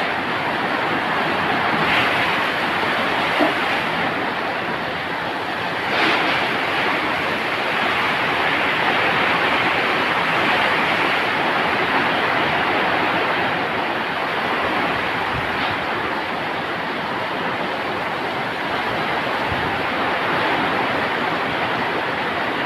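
Heavy rain driven by strong wind: a steady, dense hiss, with a brief knock about three and a half seconds in and a short swell in the wind about six seconds in.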